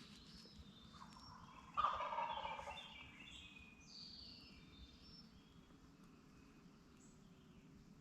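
Wild turkey gobbler gobbling once about two seconds in, a sudden rattling call lasting about a second, with small songbirds chirping faintly around it.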